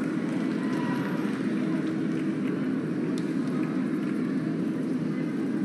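A steady low-pitched noise that holds an even level throughout, with no distinct events.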